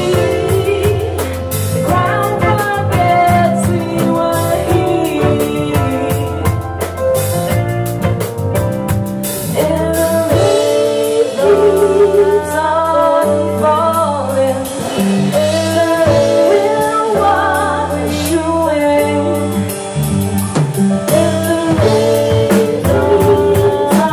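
A song with a singing voice over guitar, bass and drums.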